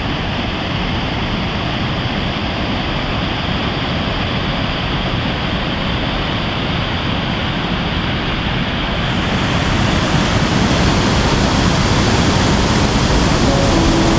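Steady rushing of fast-flowing water, a jungle river or waterfall, loud and unbroken, growing brighter and hissier about two-thirds of the way through.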